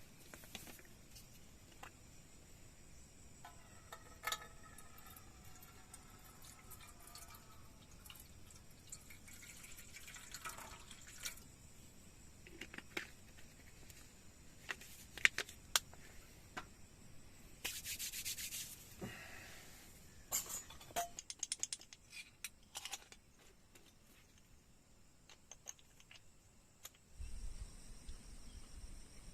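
Quiet scattered rubbing and scraping with light clicks and knocks, and a short louder rustling hiss a little past the middle.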